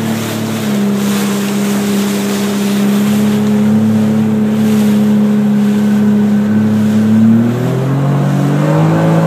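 Jet ski engine running at speed, with wind and water spray rushing past; the engine note rises near the end as the throttle opens.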